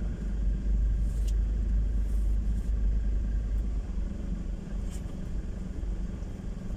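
Low steady rumble of a car moving slowly, heard from inside the cabin.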